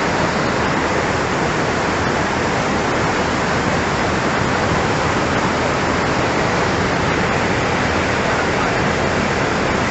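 Fast-flowing floodwater rushing: a loud, steady, even rush with no breaks.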